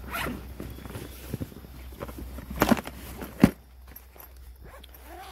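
Close handling noise: rustling, scuffing and small clicks of fishing gear being moved about, with two sharper knocks around the middle.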